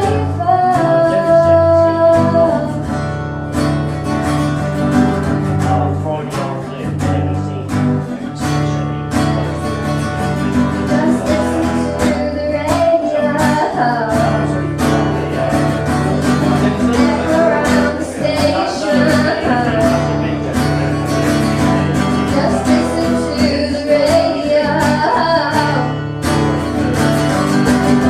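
Live performance of a song: an acoustic guitar strummed in steady chords, with a voice singing over it.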